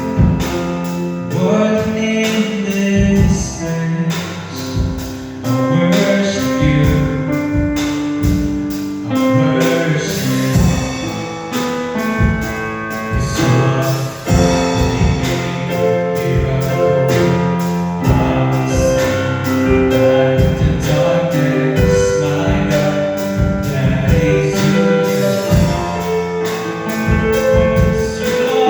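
Gospel song with singing over instrumental accompaniment, played with a steady beat.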